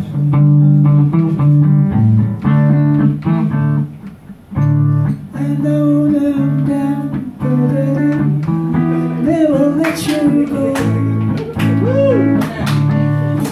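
Guitar strumming a chord sequence in a steady rhythm, with a voice singing along in places.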